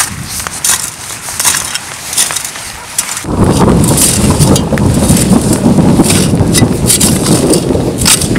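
Shovel digging and scraping through soil and pine-needle litter in a run of short, repeated strokes. About three seconds in, a loud, steady rumble of wind on the microphone sets in suddenly and lasts to the end.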